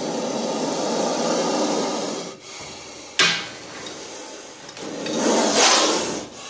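Indian spectacled cobra hissing loudly in long forced breaths: a hiss of about two seconds, a sharp sudden hiss about three seconds in, and another long hiss near the end.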